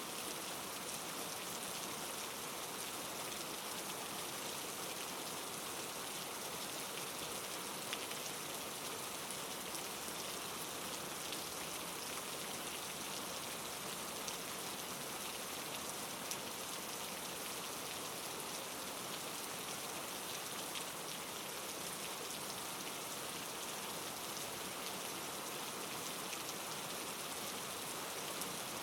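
Steady rain ambience: an even hiss of rain falling, with a few faint single pops from a crackling wood fire mixed in.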